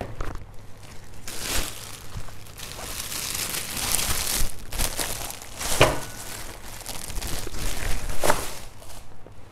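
Clear plastic bag crinkling and rustling as a pair of sneakers is slipped into it and the bag is wrapped closed, with three sharper, louder crackles along the way.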